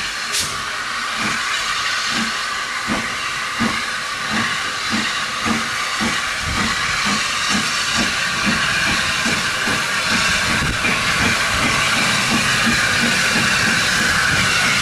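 Austerity 0-6-0ST saddle-tank steam locomotive working toward the listener: its exhaust beats come faster as it gets under way, over a steady hiss of steam from its open cylinder drain cocks, and the sound grows louder as it nears.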